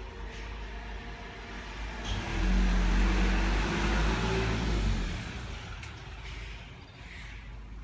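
A motor vehicle's engine passing by, swelling louder for a few seconds from about two seconds in and then fading away.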